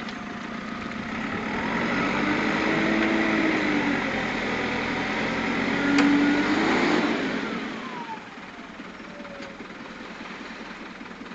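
JCB backhoe loader's diesel engine revving up under load as the backhoe arm works, with a whine that bends in pitch. About seven seconds in the whine glides down and the engine drops back toward idle. There is one sharp click near the peak.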